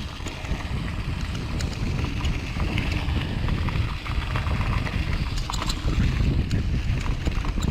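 Wind buffeting the microphone with a steady low rumble, with scattered small clicks and rattles over it.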